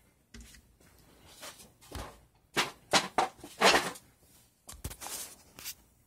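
Handling noise close to the microphone: a run of short scrapes, rubs and knocks, loudest in the middle, as the camera is moved about over the top of a glass ceiling-fan globe.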